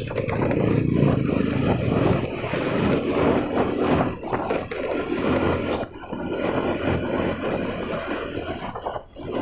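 A vehicle travelling along a road: its engine running under a steady rush of road and wind noise, dipping briefly twice.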